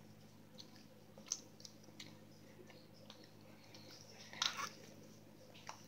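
Homemade Elmer's glue and borax slime being stretched and squished between the hands: faint sticky clicks and small wet pops, with a louder burst of squishing about four and a half seconds in.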